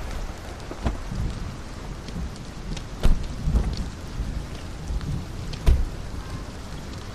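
Steady rain falling, broken by three sharp low thumps about one, three and six seconds in, the later two the loudest.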